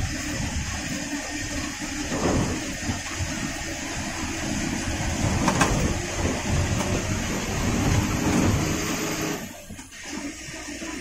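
NEKRTC bus driving, heard from the front cabin: steady engine rumble and road and wind noise, with a single sharp click a little past halfway. The noise dips briefly about nine and a half seconds in, then picks up again.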